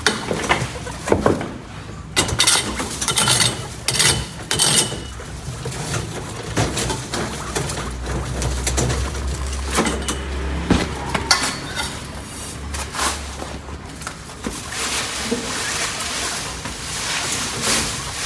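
Dry straw bedding rustling and crackling in a guinea pig pen, with many short, sharp clicks and clinks, densest in the first few seconds.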